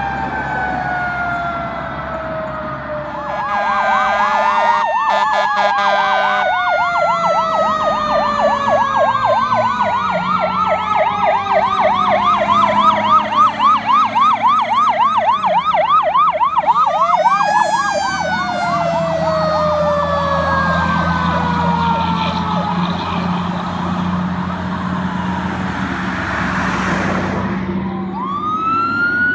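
Sirens of several fire engines and a tower ladder truck responding, overlapping: long wails that climb and then slowly fall, a fast yelping warble in the middle, and a steady chopped horn-like tone a few seconds in, over the low drone of the trucks' engines. A new wail starts climbing near the end.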